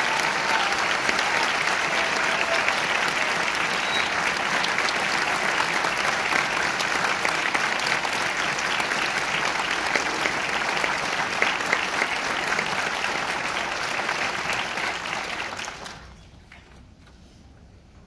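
Audience applauding, a dense steady clapping that fades away and stops about two seconds before the end.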